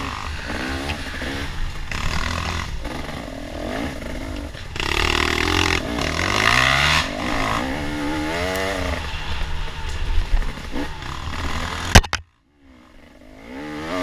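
Off-road dirt bike engine revving up and down as the rider accelerates and backs off along a wooded trail, with wind noise on the helmet-mounted microphone. About twelve seconds in comes a sharp crack, then the sound cuts out for about a second.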